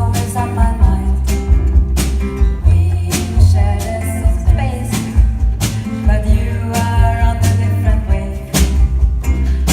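A live band playing a song: a steady drumbeat and bass line with guitar, and a voice singing the melody.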